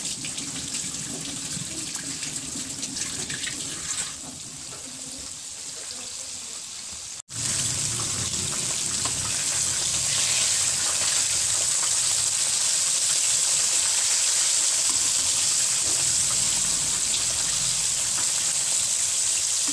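Breaded chicken drumsticks deep-frying in hot oil on a low flame: a steady sizzling hiss. It cuts out for an instant about seven seconds in and comes back louder.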